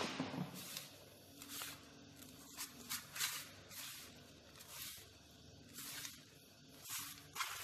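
Hands rubbing and tossing a dry, crumbly ground-peanut and sugar filling in a metal baking tray: a faint, soft rustling swish repeated about ten times, roughly once every second or less.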